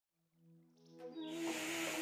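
Soft background music fades in with a hummed-sounding melody. From about a second in, a steady hiss starts under it: chopped ginger and garlic sizzling in hot oil in a wok.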